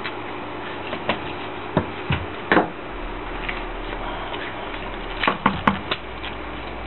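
Clicks and knocks of a Jing Gong G36C airsoft replica rifle being handled and turned over on a wooden table: scattered single knocks, then a quick cluster of four just past the middle.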